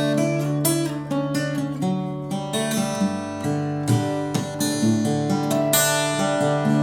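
Acoustic guitar strummed in a steady rhythm, ringing chords with no singing.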